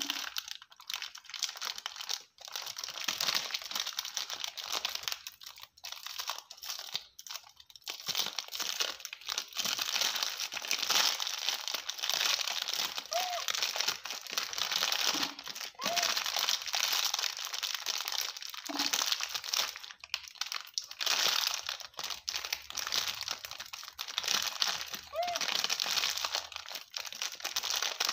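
Foil-plastic snack wrapper crinkling almost without pause, with short breaks, as a baby monkey picks and tugs at it with its fingers.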